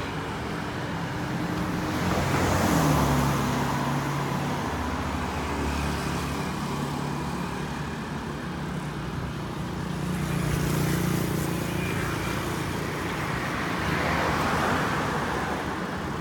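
Road traffic: motor scooters and cars passing by at speed, with a steady engine hum and three louder swells as vehicles go past, the first about two seconds in, the others near the middle and towards the end.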